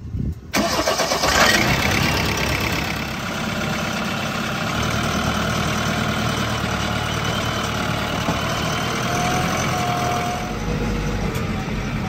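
JCB 3DX backhoe loader's diesel engine starting about half a second in, then running steadily.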